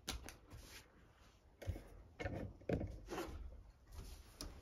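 Soft rubbing and a few light knocks from banded stacks of banknotes being set into a metal cash box, most of them about halfway through.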